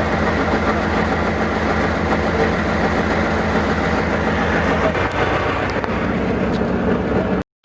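A motor vehicle's engine running steadily, its note shifting slightly about five seconds in; the sound cuts off abruptly near the end.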